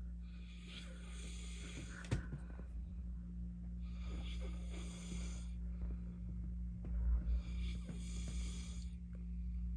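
A man snoring heavily in deep sleep: three long, breathy snores about four seconds apart, over a steady low hum. A brief low thump comes about seven seconds in.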